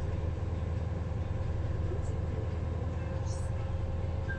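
Diesel engine of the river motor vessel ST-308 running under way with a steady low drone.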